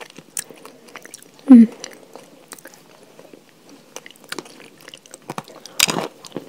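Close-miked eating: chewing with small wet mouth clicks, a short hummed voice sound about a second and a half in, then a loud crunchy bite into a hard piece near the end.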